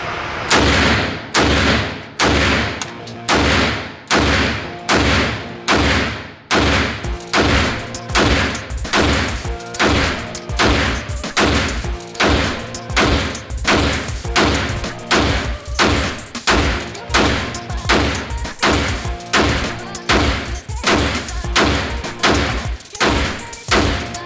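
Century Arms Micro Draco, a 7.62x39 AK-pattern pistol, fired semi-automatically in a steady string of about thirty shots, a little faster than one a second, each shot trailing off in a short echo.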